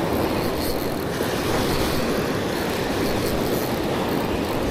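Steady wash of surf and wind noise, with a Daiwa Revelry 4000D spinning reel being cranked to wind in a hooked fish.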